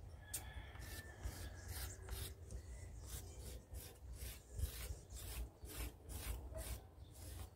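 Quick, faint scraping strokes, about four or five a second, as excess slip is scratched off the surface of a clay bowl to reveal the slip-inlaid Mishima lines.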